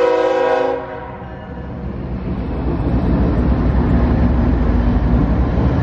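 Freight train's diesel locomotive air horn sounding a steady chord that cuts off about a second in. The locomotives then pass close by, with a low engine and wheel sound that grows louder over the next second or two and holds steady.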